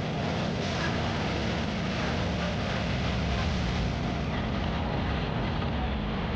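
Steady rumble and road noise of a moving vehicle, with some wind on the microphone.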